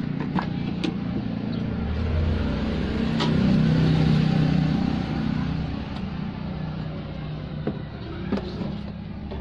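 A motor vehicle's engine running with a steady low hum. It grows louder for a few seconds in the middle, then eases back, with a few light clicks on top.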